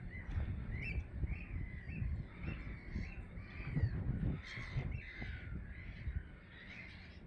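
A colony of gulls calling: many short, arched cries, one after another and overlapping, over a low rumble.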